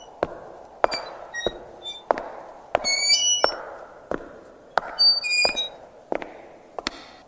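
Slow, regular footsteps on cobblestones, about one step every 0.7 s, with bright clinking and ringing of glass bottles knocked along the stones around three and five seconds in.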